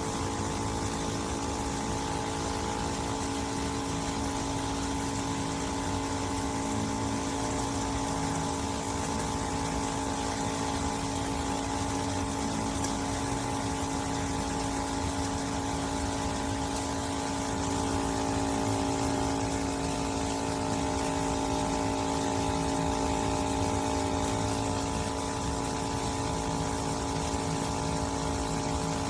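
Breville Bambino espresso machine's vibratory pump running steadily, a constant hum of several tones held throughout.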